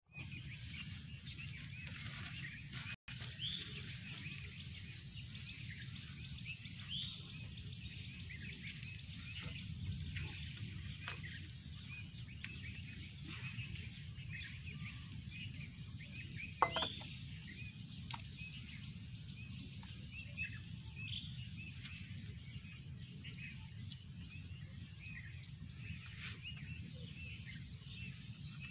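Many small birds chirping over a steady low outdoor rumble, with a faint steady high tone throughout. A single brief knock sounds a little past the middle.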